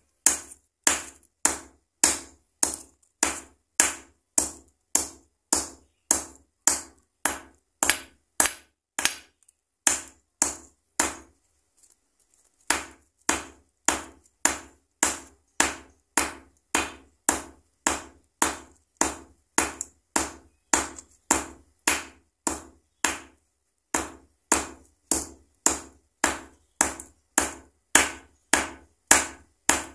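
Steady hammer blows pounding a dried cattle leg tendon against a steel plate, about two to three strikes a second with a short pause near the middle. Each blow crushes the tendon to loosen it into sinew fibres for bow backing.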